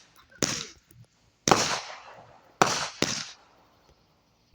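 Consumer fireworks going off: a run of sharp bangs about a second apart, each trailing off over about half a second.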